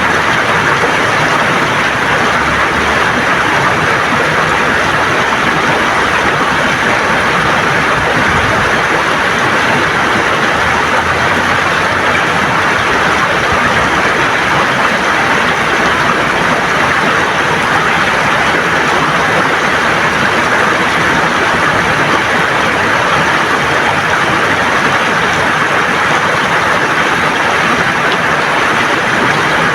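River water flowing and gurgling over stones: a steady, unbroken rush.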